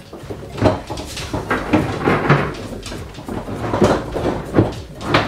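Repeated knocks and bumps from a tall fridge-freezer being rocked and shifted out of a tight kitchen recess by hand.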